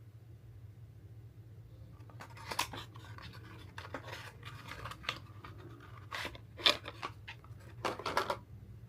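Makeup packaging being handled and opened: a string of short scraping, rustling and clicking sounds that starts about two seconds in, with the sharpest click a little before the end and a quick cluster near the end. A steady low hum runs underneath.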